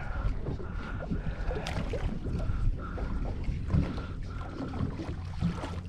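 Wind on the microphone and water against a fishing boat's hull, over a steady low rumble, with a faint high whine that comes and goes.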